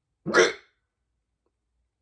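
A person's single loud hiccup: one short, sharp burst about a quarter of a second in.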